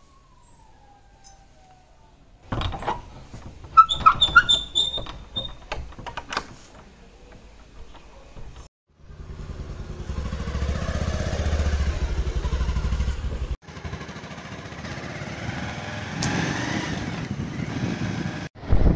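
Knocks and metallic clatter, then a motorcycle engine running steadily, and the motorcycle under way with wind noise on the microphone.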